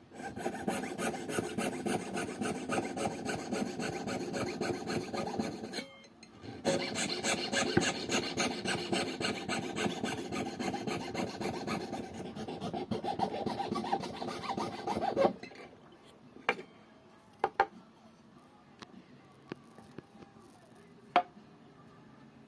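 A hand tool rasping back and forth across wood in quick, repeated strokes, in two long runs with a short break between. It stops about two-thirds of the way in, and a few light knocks follow.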